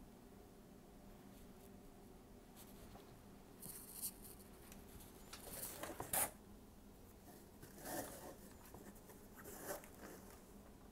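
Faint rustling and crinkling of paper and fabric being handled close to the microphone, in a few short bursts about four, six, eight and nine and a half seconds in.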